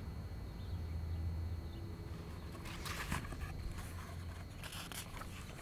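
Pages of a picture book being handled and turned, with a few soft paper rustles in the second half, over a low steady background rumble.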